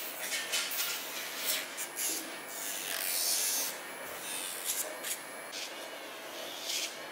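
Electric pet nail grinder filing a poodle's claws: its spinning grinding head gives repeated short grinding hisses as each nail is pressed against it.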